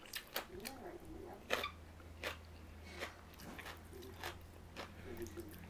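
Faint mouth sounds of eating: chewing and biting, with scattered light clicks of chopsticks and a fork against food containers.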